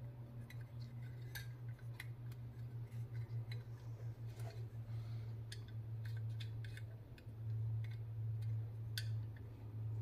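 Faint, irregular small metallic clicks and ticks of tools and small parts on an Edelbrock carburetor being handled during float adjustment, over a steady low hum.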